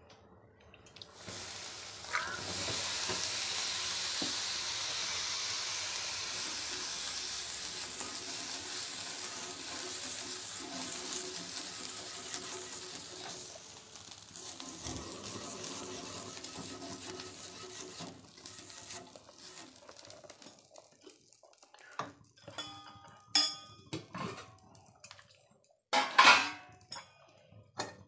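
Rava dosa batter sizzling on a hot dosa griddle: a hiss that starts suddenly about a second in and slowly dies away over about fifteen seconds. Near the end come several sharp clinks and knocks of kitchen utensils.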